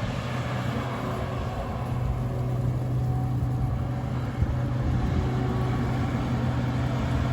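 Truck engine running steadily while driving, a constant low hum with no change in pitch.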